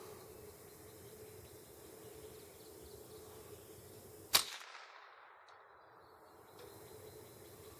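A single shot from a Ruger 10/22 .22 rifle, one sharp crack about four and a half seconds in that fades quickly.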